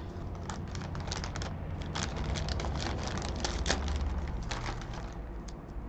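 Plastic courier bag crinkling and crackling as it is cut open with small school scissors: a run of irregular snips and rustles.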